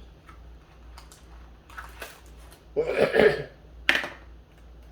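Dry crunching and small clicks as roasted crickets are chewed, with a louder noisy burst about three seconds in and a sharp one about a second later.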